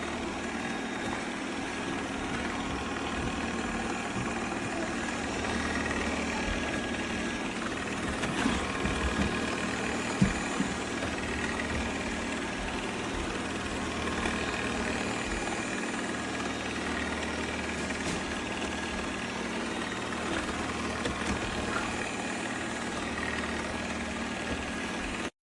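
Shark ION R75 robot vacuum running steadily while trapped under a chair, with a few short knocks about eight to ten seconds in.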